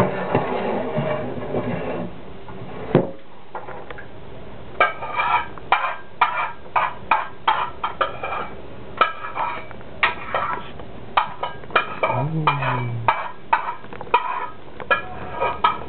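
Dishes and utensils clinking lightly, irregular taps two or three a second with a short ring, starting about five seconds in. A brief low voice-like sound about twelve seconds in.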